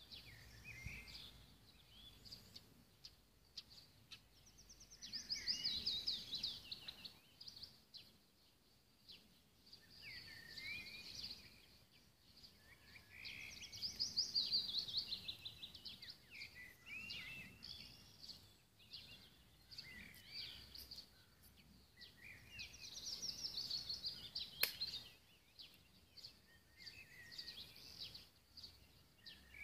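Songbirds singing. One bird repeats a song phrase of fast chirping trills three times, about every eight to nine seconds, over scattered chirps from other birds. A single sharp click comes near the end.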